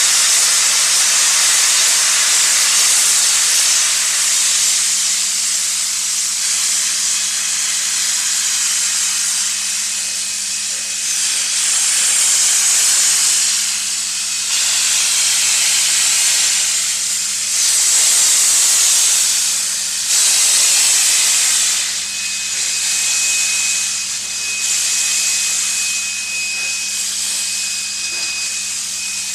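Steam locomotive 3265, a 1901 engine, hissing steam loudly and continuously as it readies to depart, the hiss swelling and easing in waves. A faint thin high tone joins about two-thirds of the way through.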